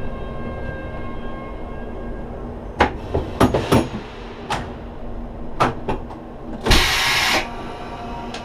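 Cab of a Bavarian Zugspitze Railway rack train standing at the station: a steady electrical hum, a string of sharp clicks and knocks from the controls, and a short loud hiss about seven seconds in.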